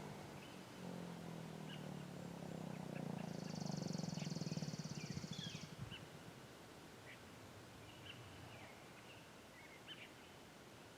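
Federal Signal 2001-SRN electromechanical siren's last low moan as its rotor coasts to a stop, pulsing faintly and dying out about six seconds in. Small birds chirp throughout, and a high buzzing trill sounds for a couple of seconds midway.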